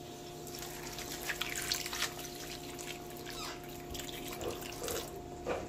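Warm water poured into a pan of seasoned fish pieces, trickling and splashing unevenly.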